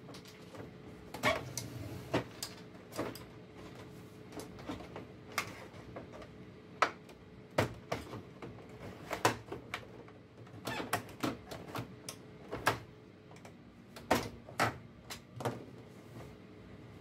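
Plastic snap latches on a Xerox WorkCentre 3335/3345 scanner's glass frame being pried loose one after another: a series of sharp plastic clicks and knocks at irregular intervals, over a faint steady hum.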